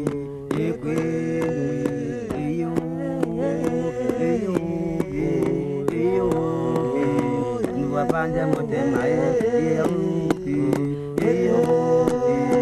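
Background music: several voices singing together in a chant-like style over a steady beat.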